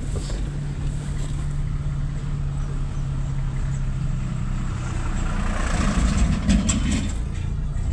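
Engine running steadily with a low, even hum; a louder, rougher stretch with a few clicks comes about two-thirds of the way in.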